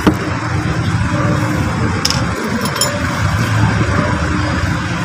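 Steady low rumbling background noise, with a sharp click just after the start and a lighter, faintly ringing click about two seconds in.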